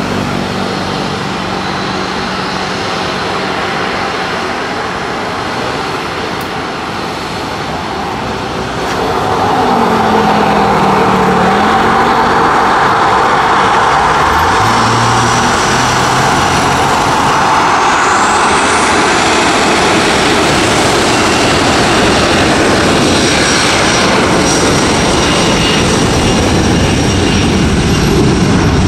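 Boeing 737-500 jet engines spooling up for takeoff. The engine noise grows louder about nine seconds in, a high whine climbs in pitch a few seconds later, and then the engines run loud and steady as the jet rolls down the runway.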